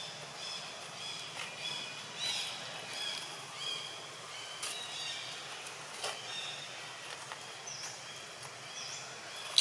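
Birds calling in the background: short high notes repeated about every half second to second, with two quick sliding notes near the end and a few faint clicks.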